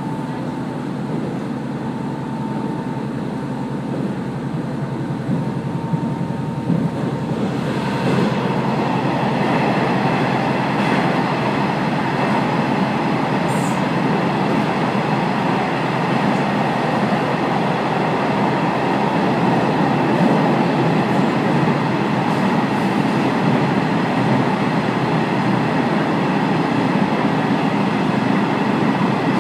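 Train running along the rails, heard from aboard a passenger car: a steady rumble of wheels and running gear that grows louder about eight seconds in and stays steady.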